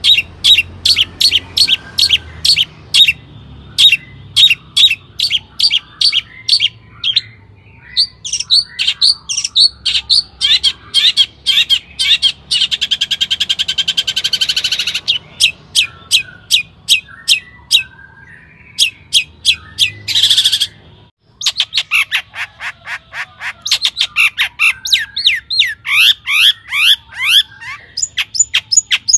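Long-tailed shrike (cendet) singing loudly in rapid runs of sharp, chattering notes. About 13 seconds in it gives a harsh buzzing rattle lasting about two seconds, and the song breaks off briefly around 21 seconds before resuming.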